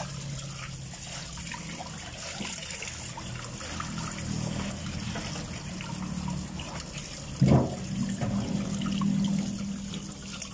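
Tap water running into a steel pot while a hand swishes and splashes pieces of milkfish about in it, rinsing them. A single brief, loud knock about seven and a half seconds in.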